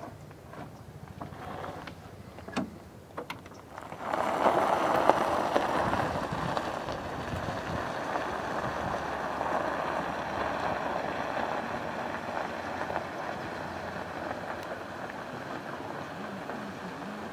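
Golf cart pulling away over a gravel drive: a steady rolling crunch of its tyres on gravel starts suddenly about four seconds in and slowly fades as it drives off. Before it, a few knocks and shuffles of people climbing aboard.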